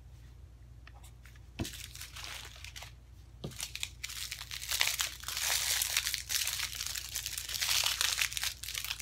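Small plastic bags of diamond-painting drills crinkling steadily as a bundle of them is handled, starting about four seconds in. Before that, two light taps.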